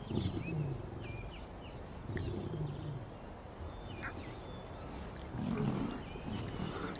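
Lions growling: three short, low calls that fall in pitch, spread a couple of seconds apart, with faint bird chirps behind.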